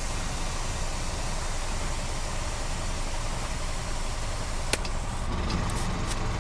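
Air compressor running with a steady hiss of air being pumped into a spare tire. A sharp click comes a little before the end, and after it the high hiss drops away.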